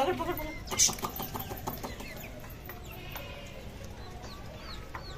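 A young chick peeping over and over, short high cheeps that fall in pitch. About a second in, a short loud flurry of pigeon wing flaps.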